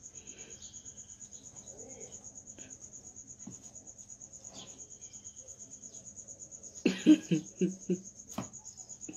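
Cricket chirping: a steady high note pulsing about seven times a second. About seven seconds in, a brief cluster of louder, quick sounds breaks in, followed by a single sharp click.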